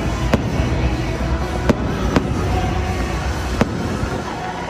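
Aerial fireworks display: a continuous low rumble of shell bursts, with four sharp bangs standing out.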